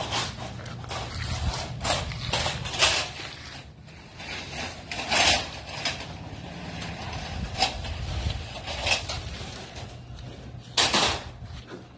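Several short metallic clatters and scrapes as lengths of painted light-gauge steel purlin are handled and passed down, the loudest one near the end, over a steady low hum.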